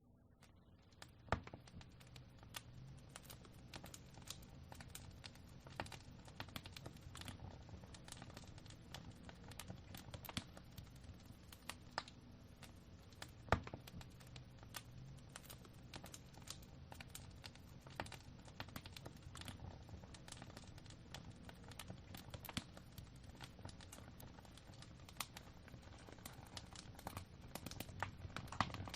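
Wood fire burning in a fireplace, crackling with irregular sharp pops over a steady low rumble of the flames; two pops, about a second in and near the middle, are much louder than the rest.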